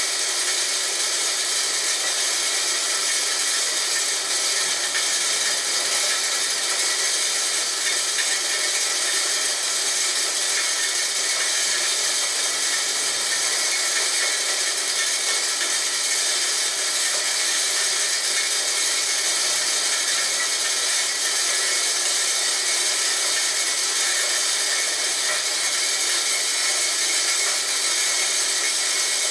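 Homemade corn grinder built from a water pump, running steadily and grinding corn, a loud, even grating noise with no breaks.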